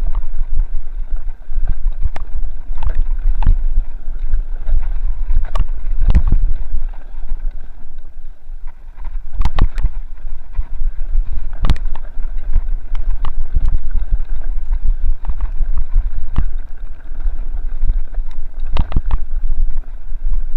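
Mountain bike descending a rough dirt trail at speed: a constant rumble of wind on the microphone, with frequent irregular sharp knocks and rattles as the bike hits bumps in the trail. The rumble eases briefly about seven to nine seconds in.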